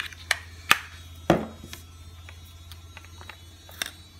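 Handling clicks and knocks of a vape box mod and its green batteries as they are taken out of the battery bay: a run of sharp clicks and taps, the loudest just over a second in.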